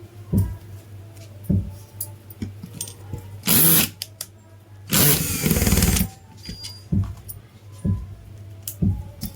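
Power tool running in two short bursts, the first about half a second long and the second about a second long, over background music with a steady thumping beat about once a second.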